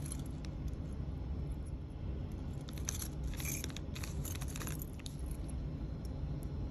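Small metal nail charms clinking against each other and a zip-lock plastic bag crinkling as the charms are handled, a short cluster of light clicks and rustles about three to four and a half seconds in. A steady low hum runs underneath.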